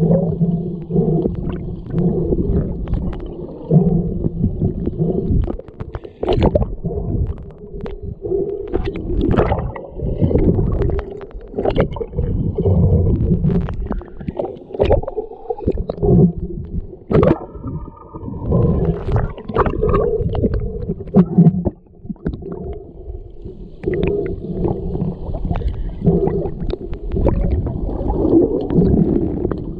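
Underwater hockey play heard through a submerged camera: muffled rumbling, gurgling water with frequent sharp clicks and knocks from sticks striking the puck and the pool floor.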